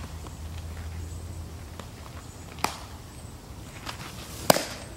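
A pitched baseball smacks into a catcher's mitt with a sharp pop near the end. A fainter sharp knock comes about two seconds earlier.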